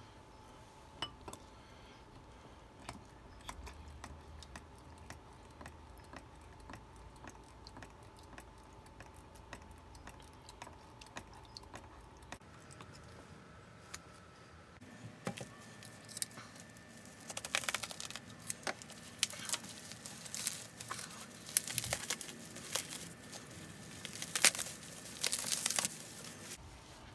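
Plastic bubble wrap crinkling and rustling as it is pulled off a brass part by hand, with dense crackles in the second half. Before that, only a few small scattered clicks.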